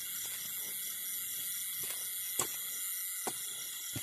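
A short-handled hoe chopping into packed soil, two sharp knocks about a second apart in the second half, over a steady high-pitched chorus of night insects.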